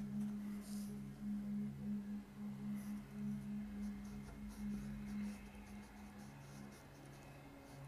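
Paintbrush dabbing and scratching oil paint onto the surface of a portrait, faint short strokes, over a steady low tone that pulses about twice a second.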